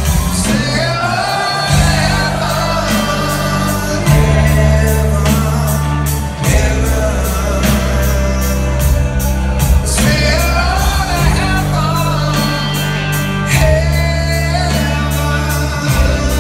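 Live rock band playing a slow song: a male lead vocal over electric guitars, sustained bass notes and drums with steady cymbal strokes, heard from the audience in a large theatre hall.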